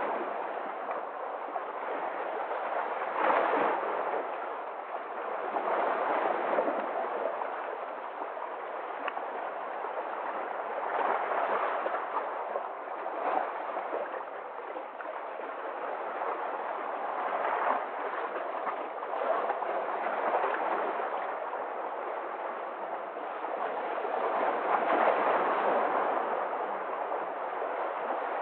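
Sea waves washing in, a continuous rush of surf that swells and eases every few seconds.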